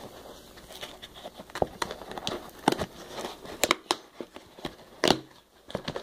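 Irregular crinkling, rustling and sharp clicks of a shipping package and its packing material being handled, with a few louder clicks scattered through.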